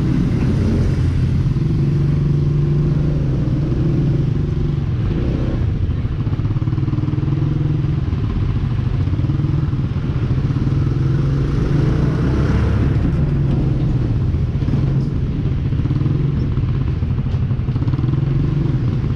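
Honda PCX 160 scooter's single-cylinder engine running steadily as it rides slowly, with road noise.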